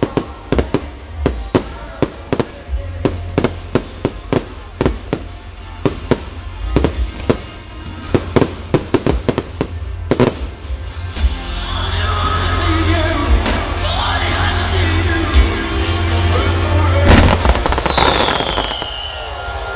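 Fireworks bangs going off in quick succession, several a second, for the first half, then a dense, louder barrage of crackling bursts with music playing underneath and a falling whistle near the end.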